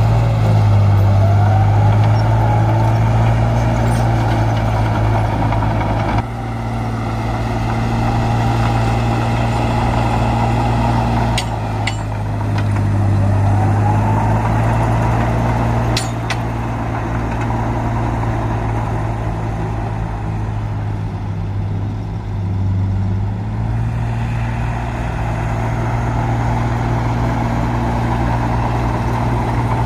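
Heavy earthmoving machine's diesel engine running steadily, its level dipping and swelling with the load. A whine rises in pitch twice, and there are a few short sharp clicks.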